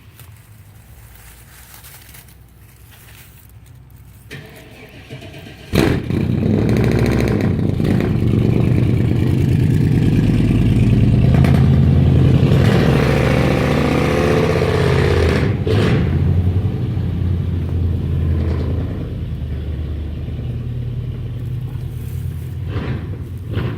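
Truck engine starting suddenly about six seconds in and then running loudly, swelling for a few seconds before settling, with the noise the owner calls horrible.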